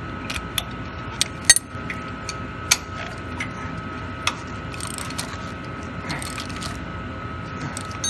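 Hand socket ratchet clicking as a mounting bolt is tightened, the last bolt to be snugged after the horizontal auger chain has been tensioned. Scattered single clicks and a few short runs of ratcheting, over a steady high-pitched background hum.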